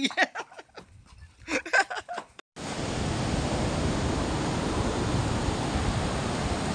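Brief laughing vocal sounds from a man, then an abrupt cut about two and a half seconds in to a steady rushing noise of wind and beach surf.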